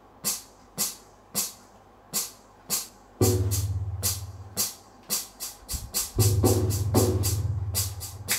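Roland HandSonic HPD-20 electronic hand-percussion pad played with the fingers: short bright percussion hits at about two a second, quickening in the second half. A deep sustained bass tone sounds under them about three seconds in and again from about six seconds in.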